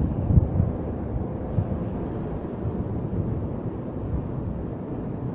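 Steady low rumble of moving air buffeting the microphone, as from an electric fan's draught, with a faint steady hum; a soft bump about half a second in.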